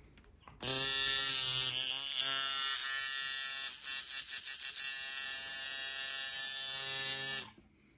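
Vintage Spaulding & Rogers Puma coil tattoo machine, set up as a shader, running with a steady electric buzz. It starts about half a second in, wavers in pitch briefly near two seconds, and cuts off suddenly near the end.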